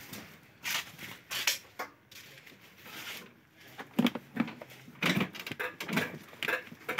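Scattered clicks, rustles and a few dull knocks from someone moving about and handling things around a parked motorcycle, with no engine running.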